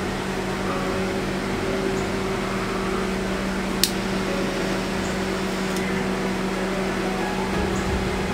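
Steady hum of a running motor, with one sharp click about four seconds in.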